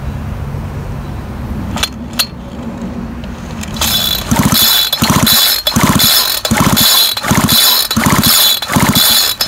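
Recoil starter of a Homelite Bandit SX-135 25cc two-stroke string trimmer, pulled over and over in quick succession with the spark plug out to check for spark. It makes about eight short whirring, ratcheting pulls roughly 0.6 s apart, after a couple of clicks.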